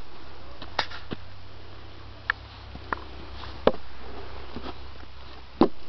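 Snow crunching and being patted by mittened hands in short, scattered taps, about seven in all, over a steady low rumble.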